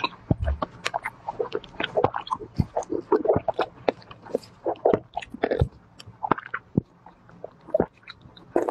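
Eating a whole raw green vegetable: crisp biting and chewing, a steady run of crunches and wet mouth clicks.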